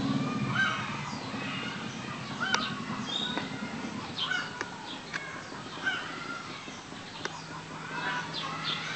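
Puppies a few weeks old squeaking and whining in many short, high-pitched cries that slide up and down, with a few sharp clicks and a low hum underneath at times.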